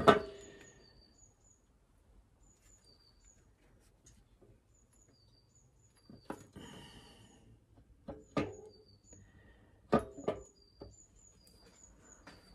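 Sharp metal knocks and clicks as a 78.4 mm stroker crankshaft is lowered into a VW engine case half and worked onto its main bearings. The loudest comes at the start with a brief ring, then four more, two of them close together near the end. Faint bird chirps sound in the background.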